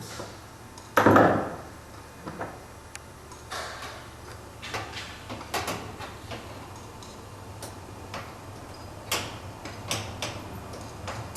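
Irregular clicks and knocks of hand tools and hardware as a nut is snugged onto a bed-rail mounting bolt, with one louder thump about a second in.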